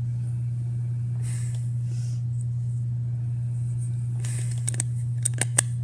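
Plastic handling of a Furby's battery compartment, ending in a quick run of sharp clicks as the battery cover is pressed into place, over a steady low hum.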